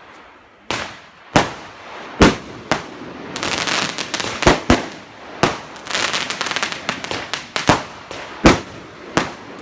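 Fireworks going off: a series of sharp bangs at roughly one-second intervals, with spells of dense crackling in between.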